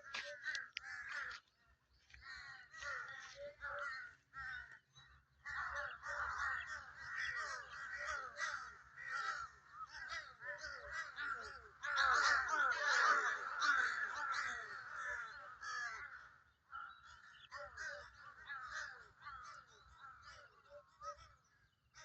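Many crows cawing at once, their calls overlapping into a dense chorus that swells to its loudest a little past halfway through and then thins out.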